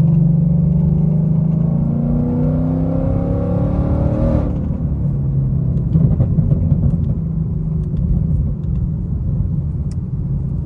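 Supercharged 5.0-litre V8 of a 2020 Ford Mustang GT with a Roush supercharger, heard from inside the cabin, rising steadily in revs for about four seconds under throttle, then dropping off suddenly. It then settles into a low steady rumble as the car cruises.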